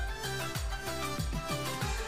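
Background music: a melody over a steady beat of low drum hits.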